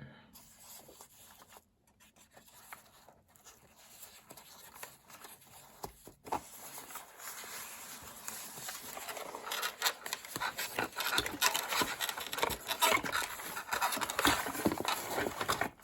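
Rustling and crinkling of packaging being handled as a keyboard box is opened, with many small clicks and light knocks; it is faint at first and grows louder about halfway through.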